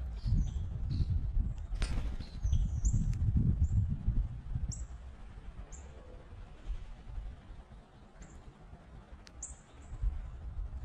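Northern cardinal chip calls: short, sharp, high notes that each drop slightly in pitch, coming irregularly, most of them in the first half. A low rumbling noise runs under the first few seconds, and there is one sharp click about two seconds in.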